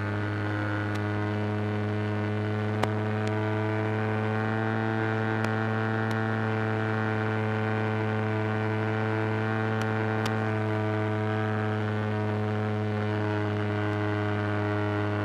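Steady low hum with a stack of even overtones, picked up on board a HobbyKing TL2000 RC floatplane in flight. A few faint ticks sound over it.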